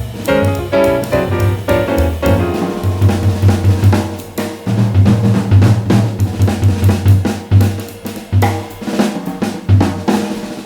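Background music: an up-tempo track with a prominent drum kit, snare and bass drum hits, and a bass line.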